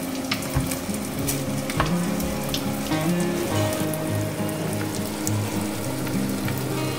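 Spring rolls (nem rán) frying in shallow oil in a pan: a steady sizzle with many small scattered crackles.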